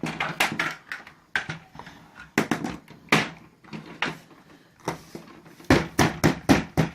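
Small plastic pieces being handled: a run of irregular clicks, snaps and short scrapes, with a quick flurry near the end, as a Kinder Surprise capsule and its toy parts are opened and fitted together.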